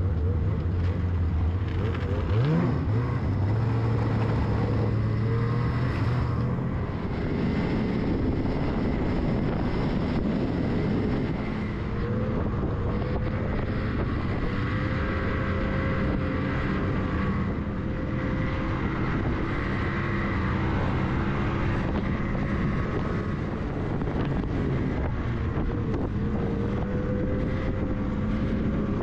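Ski-Doo snowmobile engine running under way, its pitch rising as it speeds up about two and a half seconds in and then shifting up and down with the throttle.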